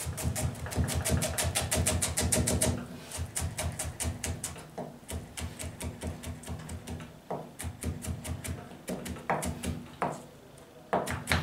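Kitchen knife chopping vegetables into julienne strips on a plastic cutting board: a fast run of even knocks, about eight or nine a second, for the first few seconds, then slower, irregular cuts with a few louder knocks near the end.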